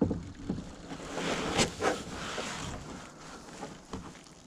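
Kayak paddle dipping and splashing in calm water, with a few sharp knocks and a louder rush of splashing between about one and three seconds in.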